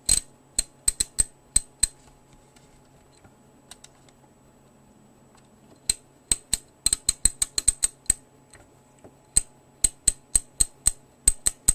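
Draper Expert 3/8" drive 45-tooth ratchet being worked by hand, its pawl clicking over the gear teeth in runs of sharp, high ringing clicks. There is a short run at the start, a pause of a few seconds, then longer and quicker runs.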